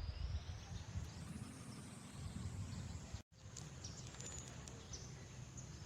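Rural outdoor background noise with a low rumble and faint, short bird chirps in the second half; the sound cuts out completely for a moment about three seconds in.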